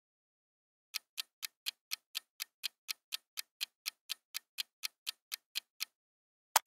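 Clock-ticking countdown timer sound effect: even, sharp ticks at about four a second, starting about a second in and stopping after about five seconds, followed by one sharp click near the end.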